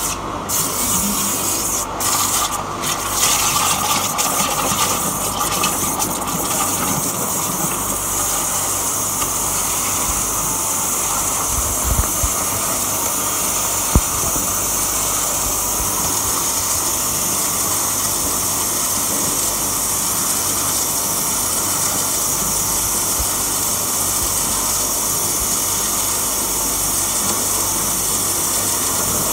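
Waterjet cutter's high-pressure jet cutting through a slab: a loud, steady hiss. A few clicks come in the first seconds, and one sharp knock about halfway through.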